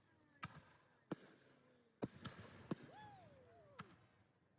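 Fireworks going off: about six separate sharp bangs at irregular intervals, two of them close together around two seconds in. A falling, whistle-like tone comes in about three seconds in.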